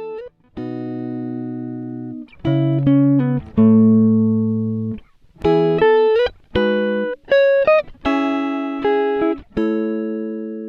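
Guitar music: a run of plucked chords, each struck sharply and ringing out as it fades, with a few notes bending in pitch.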